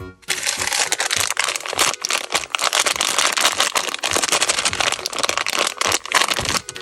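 Crinkly plastic candy packaging being handled and opened: a dense, continuous crackling full of sharp clicks that stops shortly before the end.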